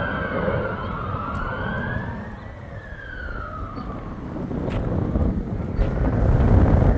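Military jet flying over at a distance: a rumbling engine roar with a whine that slides up and down in pitch, easing off about halfway through and building again toward the end.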